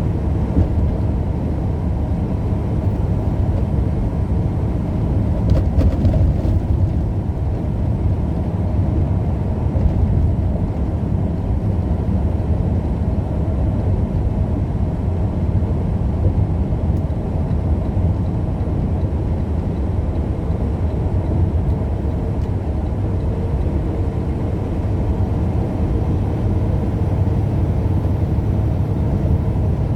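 Steady low engine and road rumble inside the cab of a moving vehicle.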